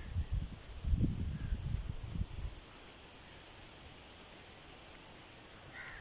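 Insects trilling steadily at a high pitch. Irregular low rumbles on the microphone fill the first two seconds or so, then fade out.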